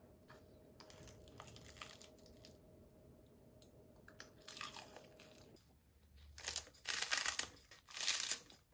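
Wooden spoon and chopsticks stirring bibimbap in a wooden bowl with soft rustling, then kitchen scissors snipping crisp romaine lettuce leaves in two loud crunchy runs near the end.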